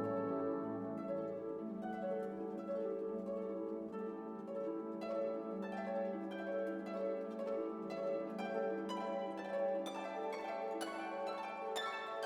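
Background music: plucked strings, harp and pizzicato, playing a gentle run of notes.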